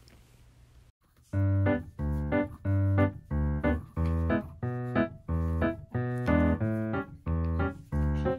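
Background music begins about a second in: a light tune of short, separate keyboard notes, about two a second.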